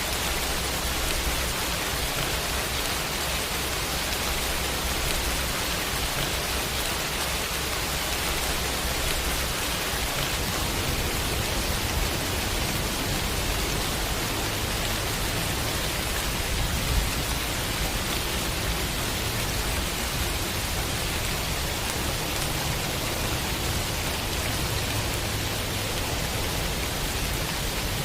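Heavy rain falling steadily in a dense, even hiss. About a third of the way in, a low rumble of thunder joins it and swells briefly past the middle.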